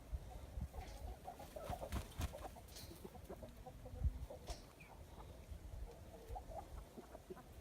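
Fighting-breed chickens clucking softly in short, scattered calls, with a few sharp clicks and low thumps among them.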